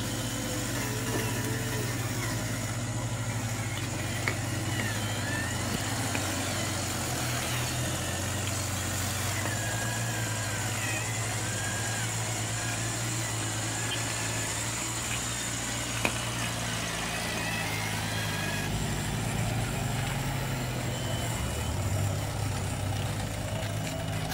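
Steady low engine hum of a radio-controlled model Mitsubishi Canter dump truck running loaded, its pitch stepping up about three quarters of the way through.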